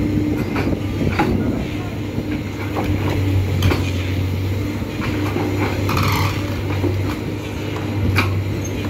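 Komatsu hydraulic excavator's diesel engine running steadily with a low hum, with scattered sharp knocks over it.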